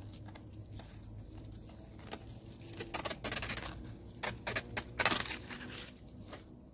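Knife slicing the leaf blade off a variegated banana leaf's midrib, the leaf tearing and rustling in several short strokes.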